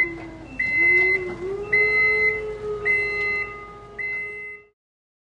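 Forklift reversing alarm beeping about once a second, with a steady lower hum running beneath it; both cut off abruptly near the end.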